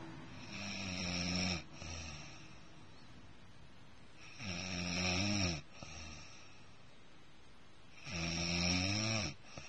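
Snoring in slow rhythm: three loud, rasping in-breaths about four seconds apart, each rising a little in pitch near its end and followed by a short, softer out-breath.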